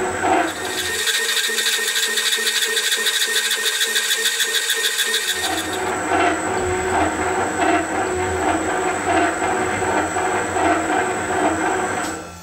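Gack metal shaper running under power, its ram stroking back and forth in an even rhythm as the tool cuts the finishing passes of a 3 mm keyway in a helical gear's bore. The machine stops just before the end.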